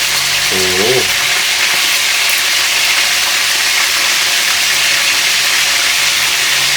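Chicken pieces frying in hot oil in a pot, with a steady, even sizzle.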